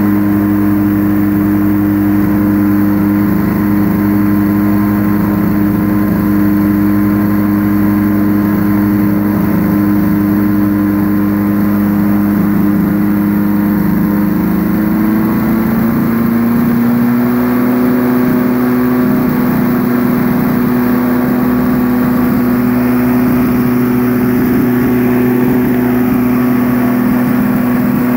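Quicksilver ultralight aircraft's engine running steadily. About halfway through, its speed picks up a little and holds at the higher pitch.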